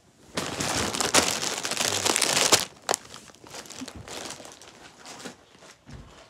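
A plastic snack bag crinkling as it is handled close to the microphone: loud crackling for about two seconds, then lighter rustles and crinkles.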